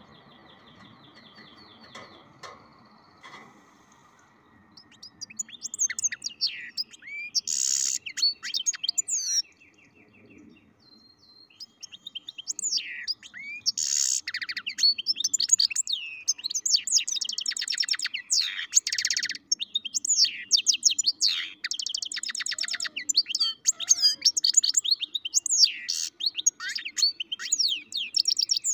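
Goldfinch × canary mule (a European goldfinch–canary hybrid) singing a long, high, twittering song full of rapid trills. It begins a few seconds in, breaks off briefly, then goes on almost without pause.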